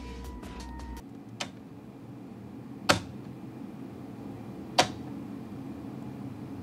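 Separate slap sound effects of something flat smacking a soft, sticky mass, one at a time about one and a half to two seconds apart, over a low hum. In one of them the slap ends with a slight sticky pull as the striker lifts off.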